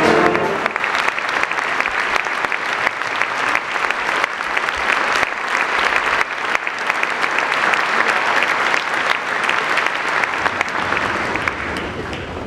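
Audience applause, a dense sustained clapping from a full hall, as a brass band's final chord dies away in the first half-second; the clapping eases off a little near the end.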